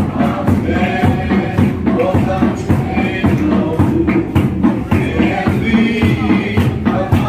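A group singing a hymn with a drum and hand percussion keeping a steady beat.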